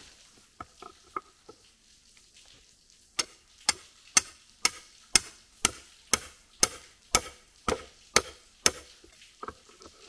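A hammer striking a length of rebar about a dozen times at an even pace of about two blows a second, driving it into the ground to hold a wooden step board. A few light knocks come first as the board is handled.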